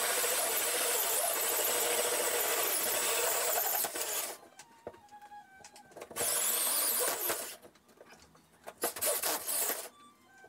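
Drill spinning a Milwaukee 6-3/8" carbide-grit hole saw, which has no teeth, through ceiling drywall: a steady grinding rasp. It stops about four seconds in, then comes back in two shorter bursts of cutting, around six and nine seconds in.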